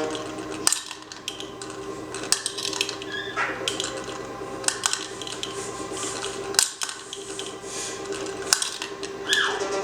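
Sharp plastic clicks and clacks of a mini tabletop finger basketball toy being played, one every second or two.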